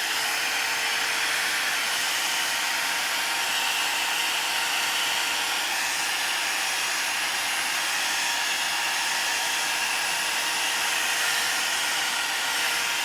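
WAER Professionals one-step hot-air blow dryer brush running on its low setting: a steady rush of air with a steady motor hum.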